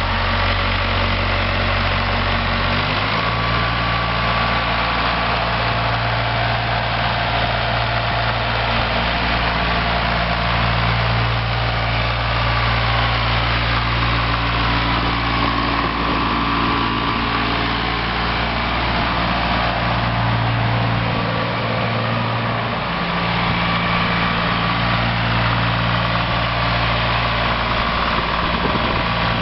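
Ford 1910 compact tractor's three-cylinder diesel engine running steadily while the tractor is driven slowly. The engine note rises a little about three seconds in and dips briefly about two-thirds of the way through.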